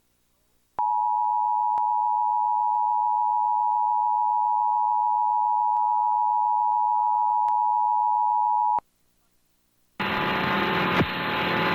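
Emergency Alert System two-tone attention signal (853 Hz and 960 Hz sounded together): a steady, even dual tone that starts about a second in, holds for about eight seconds, and cuts off sharply. It marks the start of the national EAS test alert.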